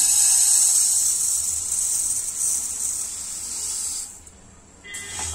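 Dry split moong dal grains poured into a nonstick pan: a steady rushing hiss of grains landing, thinning out and stopping about four seconds in.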